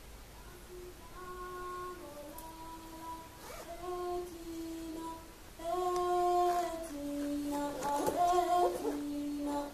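A voice singing a slow wordless melody of long held notes, moving from pitch to pitch about once a second, starting about a second in.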